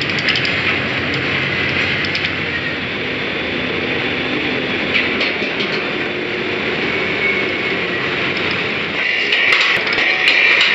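Drilling rig machinery running while tripping pipe: a steady, loud mechanical din as the traveling block moves up the derrick. A cluster of sharp metal clanks and rattling comes in the last couple of seconds.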